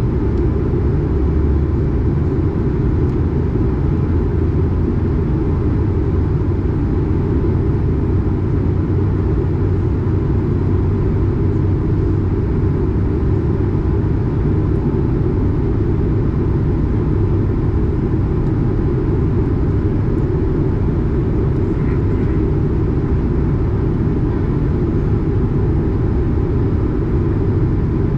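Steady in-cabin drone of an Airbus A220 in flight, from its Pratt & Whitney PW1500G geared turbofans and the airflow past the fuselage: a deep, even rumble with a faint steady high tone above it, during the descent through cloud.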